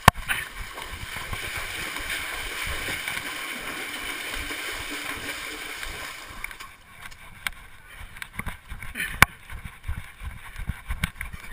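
Water splashing and rushing steadily as running feet and a cart are dragged through a shallow stream. About seven seconds in this gives way to a quieter stretch of scattered knocks and bumps.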